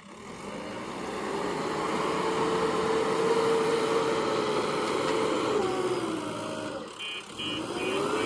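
Backhoe loader's engine running, its pitch slowly rising and falling as the machine works, with a brief dip about seven seconds in.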